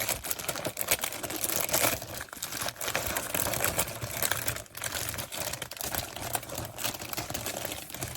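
Packaging being handled, with steady crinkling and small crackling clicks.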